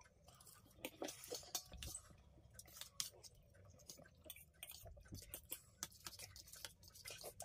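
Sounds of two people eating noodles with forks from steel plates: faint, scattered clicks and scrapes of the forks against the plates.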